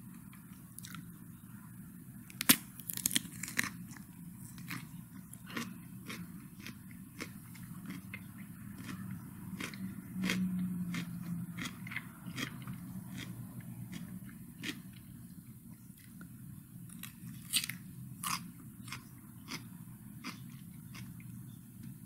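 A person biting into and chewing raw cucumber: crisp, irregular crunches, loudest a couple of seconds in and again about three-quarters of the way through.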